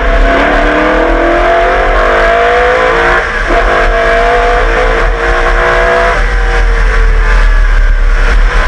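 Holden V8 of the 1989 HRT Walkinshaw Group A Commodore race car at speed, revs climbing through the gears with upshifts about three and six seconds in, then falling away near the end as it comes off the throttle.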